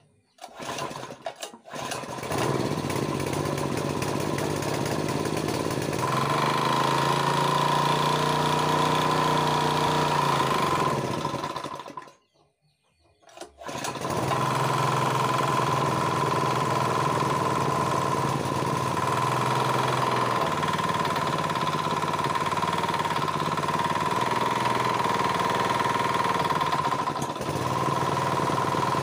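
Small water-pump engine running on LPG: a few short pull-start bursts, then it catches and runs steadily with a high whine over the engine note. About eleven seconds in it winds down and stops, and a moment later it is started again and runs steadily.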